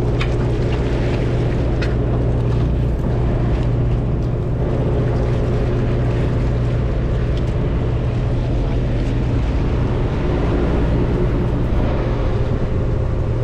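A boat's engine running steadily, a continuous low drone that holds an even pitch. A few light clicks come in the first two seconds.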